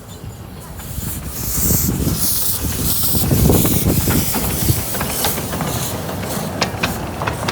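Miniature steam locomotive hissing steam, loudest a second or two in, followed by a low rumble that builds toward the middle and a few sharp clicks near the end.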